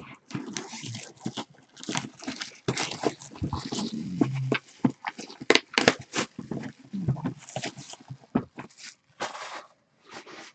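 White cardboard trading-card boxes being handled and a box lid lifted off and set back: scraping, rustling and a string of short knocks.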